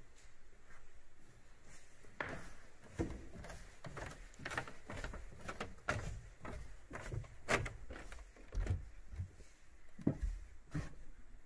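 Irregular footsteps and light knocks on wood and a hard floor, scattered through the stretch and louder from about two seconds in.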